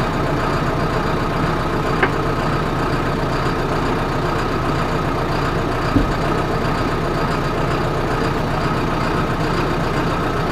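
A John Deere tractor's diesel engine idling steadily, with two light knocks about two and six seconds in.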